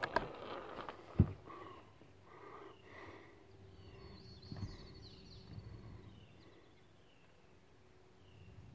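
A sharp click from the Ruger American .22 Magnum bolt-action rifle's action about a second in as it is worked closed, then quiet outdoor air with faint bird chirps repeating every second or so.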